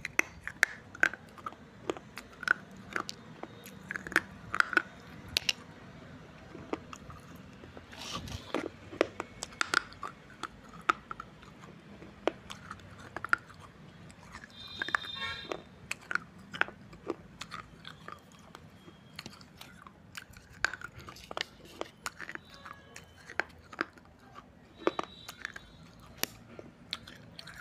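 Person biting and chewing shards of a fired red-clay surai pot coated with red clay paste, close to the microphone: many sharp, irregular crunches.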